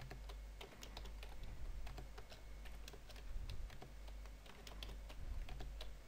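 Typing on a computer keyboard: irregular key clicks, several a second, over a low steady hum.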